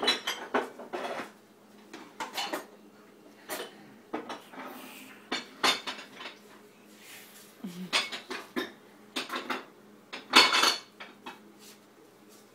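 Dishes and cutlery clinking and clattering in short, irregular clusters as a dishwasher is unloaded, the loudest clatter about ten seconds in.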